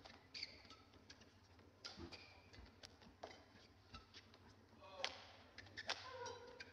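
Badminton rally: rackets striking the shuttlecock as sharp, irregular clicks, with short squeaks of players' shoes on the court floor.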